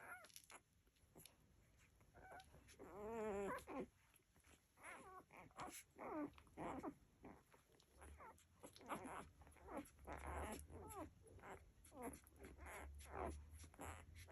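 Labrador puppies whimpering and squeaking as they nurse: many short, high, wavering whines, with one longer whine about three seconds in.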